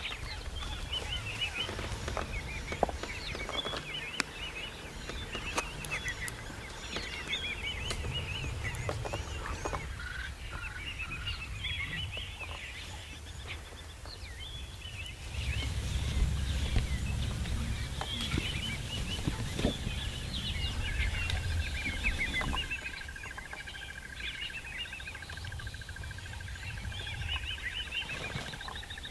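Bush ambience of many birds calling and chirping, over a low rumble that swells in the middle. About three quarters of the way through, a steady high-pitched trill joins in and keeps going.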